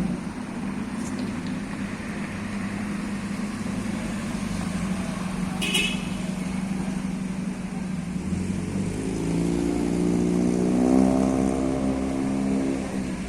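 Motor vehicle engines running steadily, with one engine rising in pitch from about eight seconds in as it speeds up.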